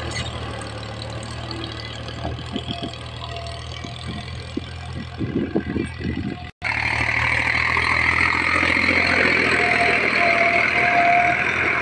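Powertrac 435 tractor's three-cylinder diesel engine running steadily while pulling a disc harrow through dry soil, with a few short knocks in the first half. After a brief break about six and a half seconds in, the engine is heard louder and closer, with a strong hiss over the hum.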